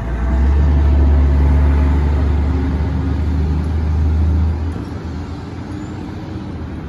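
Tower ladder fire truck's diesel engine pulling away under acceleration, a deep rumble that drops off about four and a half seconds in as the truck turns away, leaving a lower background hum.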